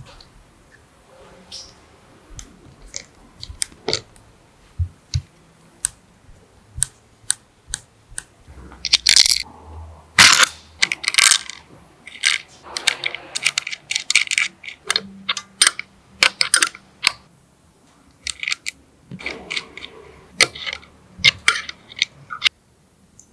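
Handling noises at the workbench: a long run of light clicks, taps and small knocks, few at first and coming thick and fast through the middle.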